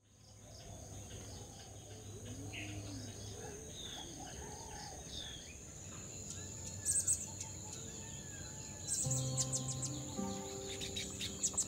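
Background track of birdsong over a steady high cricket-like chirring, with soft held music notes coming in about nine seconds in.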